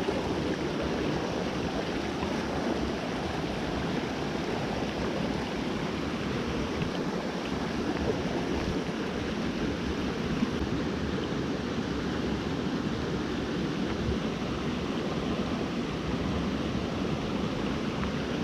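Creek water rushing steadily, an even noise that does not change.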